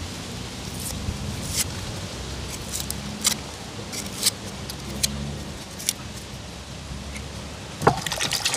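Kitchen knife peeling the skin off an onion: short, light scrapes and clicks of the blade, with a louder knock near the end. A low steady hum runs underneath.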